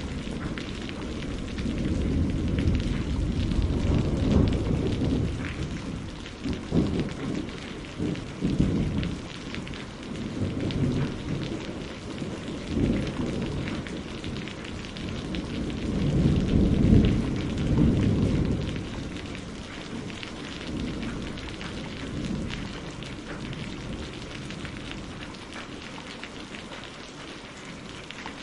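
Steady rain with rolling thunder. Deep rumbles swell and fade twice, once early and once past the middle, with a few sharper cracks in between.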